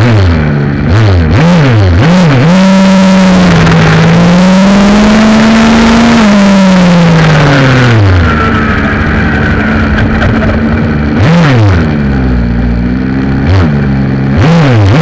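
Small two-stroke gas engine of a Redcat Rampage MT 1/5-scale RC monster truck, heard up close from on board, revving in quick blips, holding high revs for a few seconds, then dropping back. It blips again near the end.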